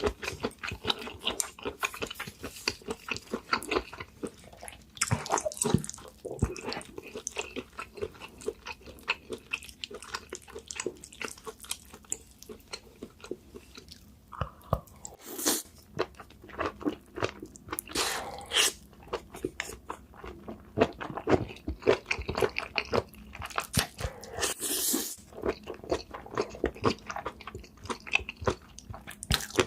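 Close-miked eating sounds of a person chewing and biting spicy seafood: a dense run of rapid crunchy clicks, broken a few times by louder, longer bursts.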